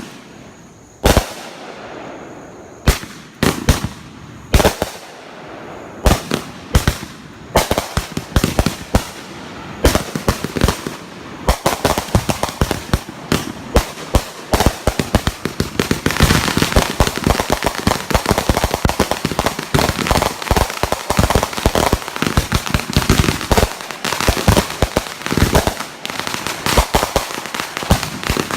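Fireworks finale: separate sharp bangs about a second apart, building from about halfway in to a dense, continuous barrage of bangs and crackling.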